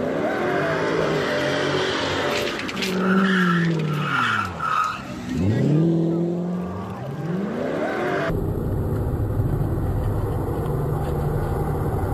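Car engine revving hard during a burnout, its pitch climbing and falling about four times, with tire squeal in the middle. About two-thirds of the way through it changes suddenly to a steady, lower engine drone.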